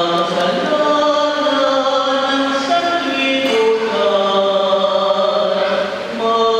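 A choir singing a slow hymn in a church, with long held notes that change pitch every second or two.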